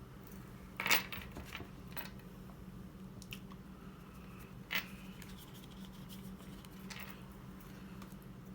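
Pokémon trading cards being handled: a few short rustles and clicks, the sharpest about a second in and just under five seconds in, over a steady low hum.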